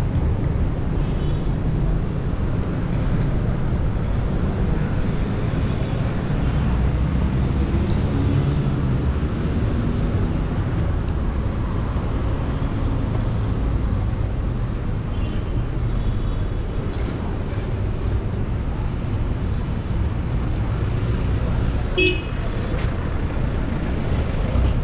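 Street traffic: a steady low rumble of passing cars, vans and motorbikes, with a brief sharp sound near the end.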